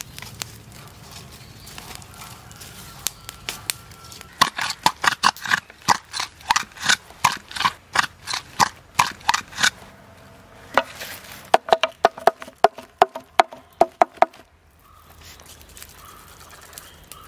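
A stick pounding inside a hollow green bamboo tube, grinding mutton into mince. The rhythmic knocks come about two or three a second, each with a ringing note, in two runs with a short pause between.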